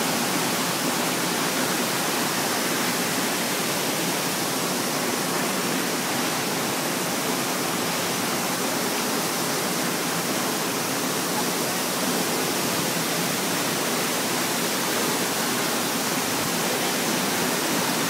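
Waterfall stream rushing over boulders: a steady, even rush of whitewater that does not change.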